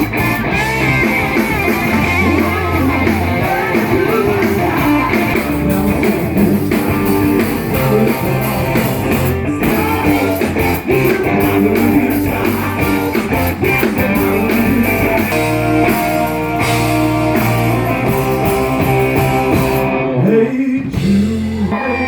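Live rock band music with guitar to the fore, playing an instrumental stretch.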